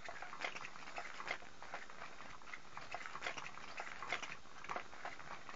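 Cat's Meow battery-powered cat toy running, its wand moving under the nylon cover: faint, irregular clicking and fabric rustling.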